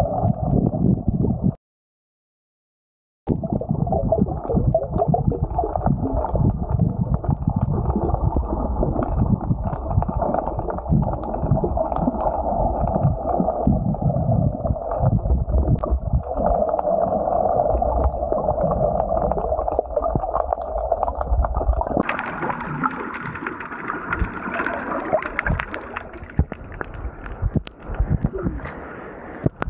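Muffled underwater rumbling and gurgling of seawater, heard through an action camera's housing below the surface. The sound cuts out completely for about two seconds near the start, and about twenty-two seconds in it turns brighter and splashier as the camera nears the surface.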